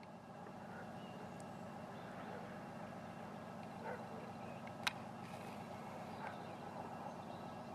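Distant 2TE10M diesel locomotive's two-stroke opposed-piston diesel engines running steadily under load, a low drone as it pulls a freight train away. A single sharp click sounds about five seconds in.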